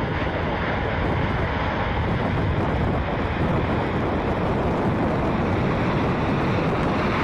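F-35B Lightning II's single turbofan engine (Pratt & Whitney F135) at takeoff power, a steady rushing noise heard from a distance as the jet rolls down the runway and lifts off.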